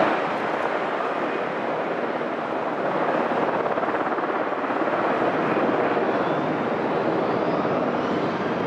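Airbus A320-214 jet engines (CFM56 turbofans) running at high power as the airliner rolls for takeoff: a loud, steady rush with a faint rising whine near the end.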